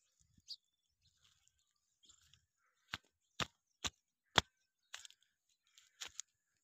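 Footsteps crunching over dry soil and dead grass: a run of sharp cracks about two a second starting about three seconds in, then a couple more near the end.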